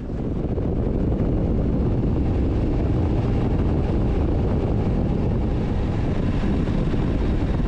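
Motorcycle on the move: a steady loud rush of riding wind over the microphone with the engine underneath, cutting in abruptly.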